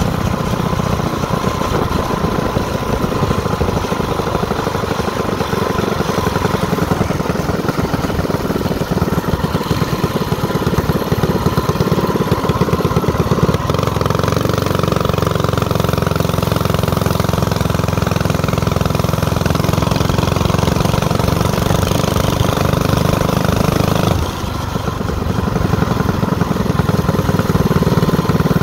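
Motorcycle engine running steadily while riding along a street. About three-quarters of the way through, the engine sound drops briefly, as when the throttle is eased or a gear is changed, then picks up again.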